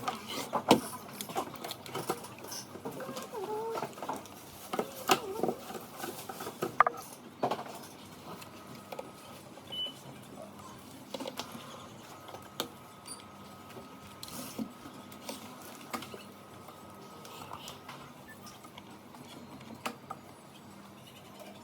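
Scattered clicks, taps and knocks of hands and tools handling parts, busiest in the first several seconds and then sparser, with a few short chirping calls near the start.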